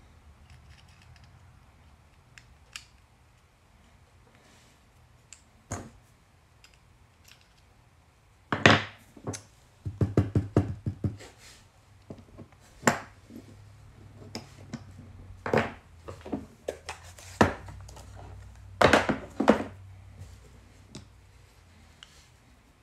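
Small metal clicks, scrapes and knocks of an opened combination padlock's internal parts being handled and pressed back together, with the louder knocks coming in short clusters from about a third of the way through.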